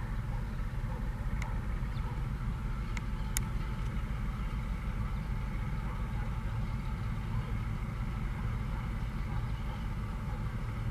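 Diesel locomotive engines of a freight train (GAIA No. 5281 leading, ALCO RSD-16 No. 8273) running with a steady low rumble. A few faint, short clicks come between about one and a half and three and a half seconds in.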